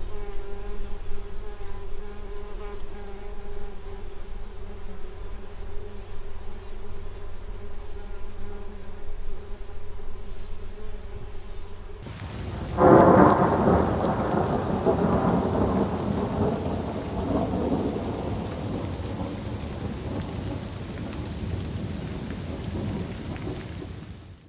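Bumblebee buzzing steadily with an even hum for about twelve seconds. Then thunder breaks in suddenly, loudest about a second after it starts, and rolls on in a long fading rumble over steady rain falling on water.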